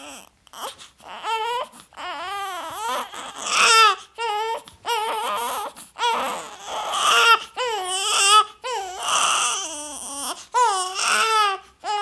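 A baby crying: a run of short, wavering wails, each a second or less, with short pauses between them.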